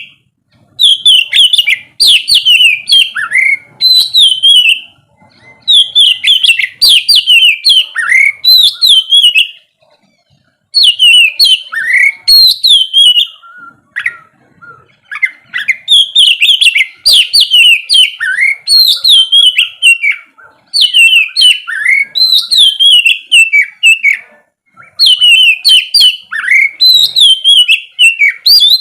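Oriental magpie-robin singing loud, fast phrases of whistled, warbling notes, in bouts of a few seconds with short pauses between them and a longer pause about ten seconds in.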